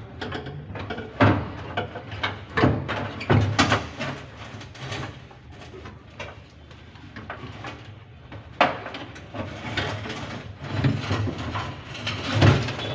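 Irregular knocks, clanks and scrapes of hand work on metal parts under a vehicle, coming in uneven clusters, with the loudest strokes about a second in, around three seconds in and near the end.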